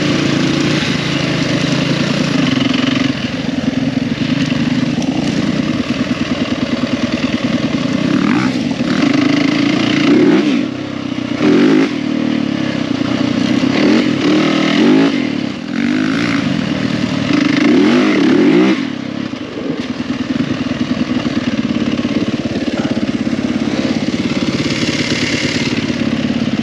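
Yamaha 450 four-stroke single-cylinder dirt bike engine being ridden hard on a dirt trail. Several times, mostly in the middle, the engine revs up sharply and then eases off as the throttle is rolled off, before settling back to a steadier run.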